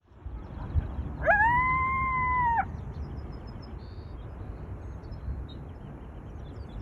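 A single drawn-out animal howl, about a second and a half long, that rises at the start, holds one pitch and then stops abruptly. It sits over a steady low rumble.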